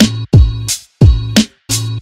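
Background music with a steady beat: deep kick drums and sharp hits over a low bass note, broken by short stops between the hits.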